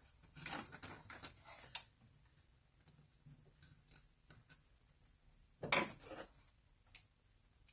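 Hands handling parts inside a portable air compressor's plastic housing: light clicks, scrapes and rustling in the first couple of seconds, scattered ticks, then a louder clatter about six seconds in.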